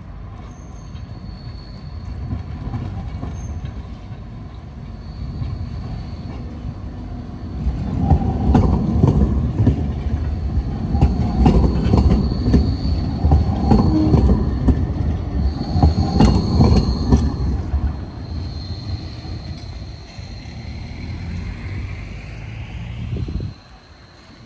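Articulated low-floor tram passing close by on a curve over track switches: wheels and running gear rumbling, with clicks and knocks as the wheels cross the rail joints and points, and a thin high wheel squeal from the curve. The tram is loudest from about eight to eighteen seconds in. Near the end a rising whine is heard, then the sound drops off abruptly.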